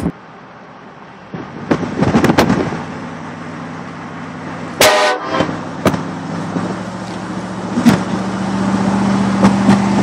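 A short blast of a Nathan Airchime K5LA train horn about five seconds in, over the steady running of a vehicle heard from inside the cab, with a few sharp knocks.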